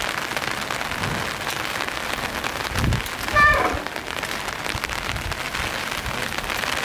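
Steady hiss of rain falling on a flooded street, with a short raised human voice a little after three seconds.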